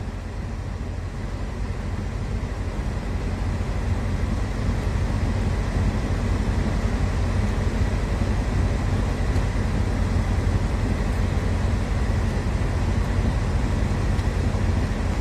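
Steady low rumble of a moving car heard from inside the cabin, growing a little louder over the first few seconds, then holding steady.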